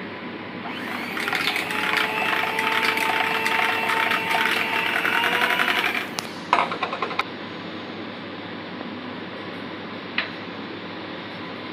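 Electric hand mixer running with its beaters in a steel bowl of butter mixture: a steady motor whine with rapid clicking for about five seconds, then it stops. A few knocks follow just after.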